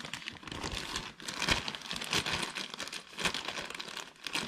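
Small plastic bag of spare carburettor main jets crinkling and rustling as it is handled, with many small irregular clicks.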